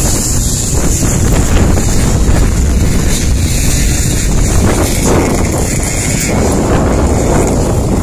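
Wind noise on the microphone over two-stroke motocross bike engines running as the riders pass along the track.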